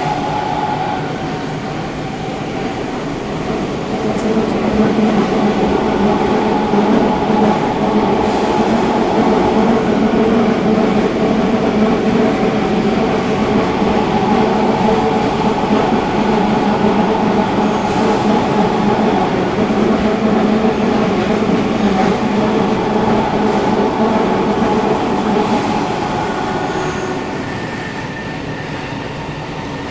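Sendai Subway 1000N series train running between stations, heard from inside the car: steady running noise of motors and wheels on rail, with several steady hums. The running noise grows louder a few seconds in and eases off again near the end, and the air conditioning is running.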